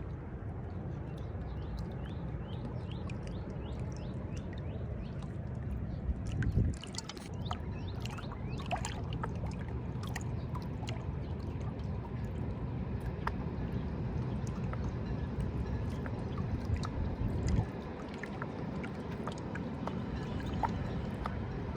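Steady low rumble of inline skate wheels rolling over pavement, with small clicks and ticks over it and two brief louder bumps, about six and a half and seventeen and a half seconds in.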